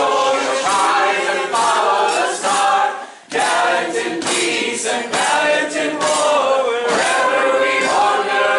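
A group of voices singing a song together unaccompanied, with a short break between phrases about three seconds in.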